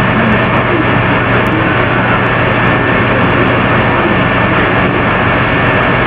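Loud, steady static hiss from a computer microphone recording of a room with all sound sources turned off, with a faint steady hum running through it. The uploader takes it for over-the-air microwave communication.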